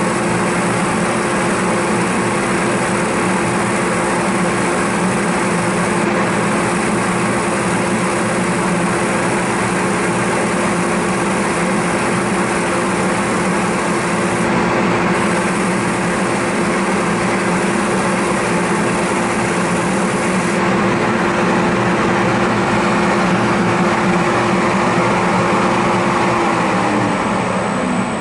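Motor-driven abrasive wheel (a French wheel) running steadily at a slow speed while grinding a rubber pipe stem to shape. Near the end the motor is switched off, and its hum falls in pitch as it spins down.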